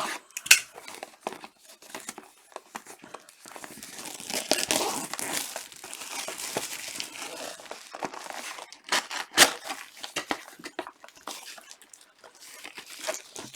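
Plastic wrapping of a trading card box or pack crinkling and being torn open by hand, with a couple of sharp snaps. The crinkling is densest in the middle stretch.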